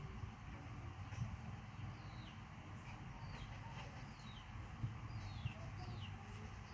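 A bird calling with short chirps that fall in pitch, repeated about once a second from about two seconds in, faint over a low steady background rumble.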